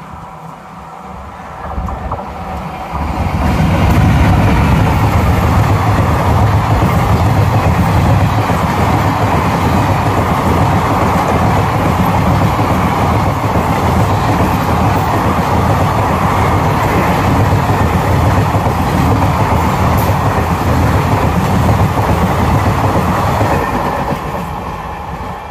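Electric-locomotive-hauled express passenger train running through at high speed, with a rush of coaches and wheels clattering over the rails. It swells about three seconds in as the train arrives, holds loud while the coaches stream past, and eases off near the end as the last coach goes by.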